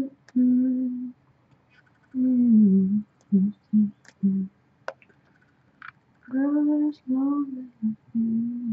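A woman humming in short phrases of held and sliding notes, broken by pauses, with a few faint clicks.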